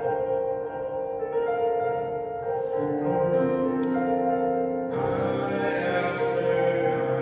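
Mixed chorus singing held notes with piano accompaniment. About five seconds in, the sound swells suddenly fuller and brighter.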